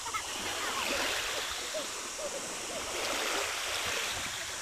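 Shallow water sloshing and splashing steadily around a person's legs as he wades through it.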